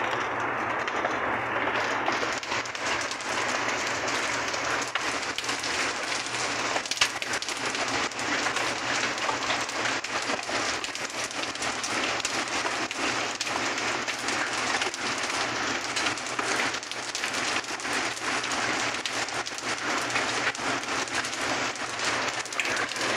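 Hail falling steadily: a dense, continuous clatter of countless small ice pellets hitting paving and grass.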